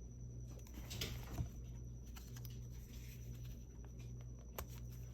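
Paper pieces being handled and set down on a table: a short rustle about a second in, a light tap, then a single sharp click near the end, over a low steady hum.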